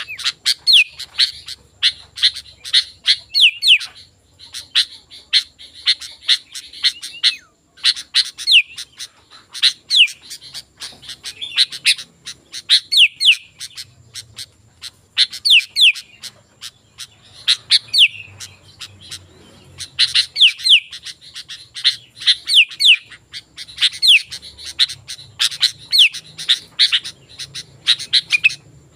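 Sooty-headed bulbul (kutilang) singing busily: repeated phrases of sharp chirps with quick falling whistles, in runs broken by a couple of short pauses.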